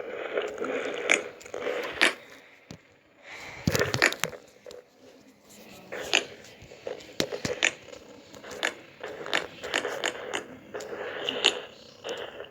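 Slime being squished and stretched by hand, giving irregular small crackling pops and sticky squelches.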